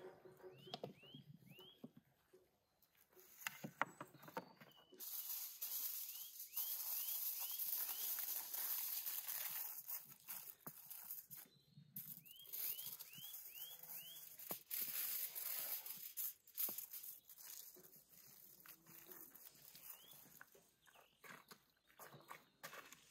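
Light clinks and knocks of dishes and utensils handled on an outdoor table, with a bird giving runs of short chirps several times. A steady hiss fills the middle stretch.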